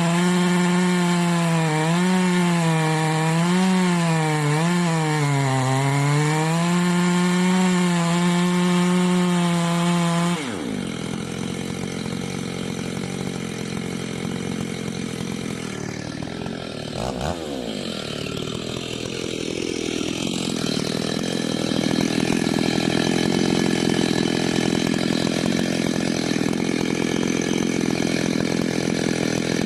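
Ported Stihl MS880 two-stroke chainsaw with a dual-port muffler running at full throttle, its engine pitch wavering up and down as it cuts wood. About ten seconds in the clear engine note gives way abruptly to a rougher, noisier saw sound.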